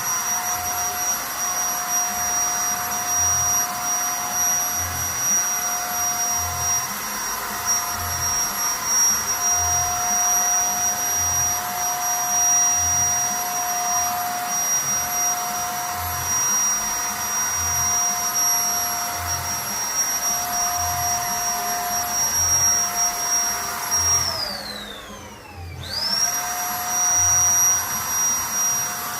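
Zipper electric paint spray gun running with a steady high whine, a low pulse repeating about once a second underneath. About 24 seconds in the motor winds down with a falling whine, stops briefly, then spins straight back up.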